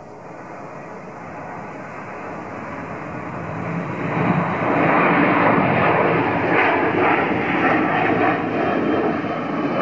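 Boeing 787's jet engines running at high power as the airliner rolls past, the roar growing louder over the first five seconds and then holding.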